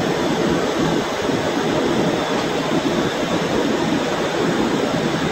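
Steady hiss of a hose-fed gas torch burning, typical of the flame used to heat cane so that it can be bent.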